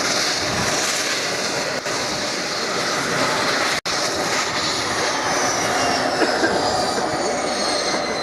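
Dash 8 Q300's Pratt & Whitney PW123 turboprop engine running with a steady roar. Over the second half a high whine falls steadily in pitch as the engine winds down. The sound drops out for an instant just before four seconds in.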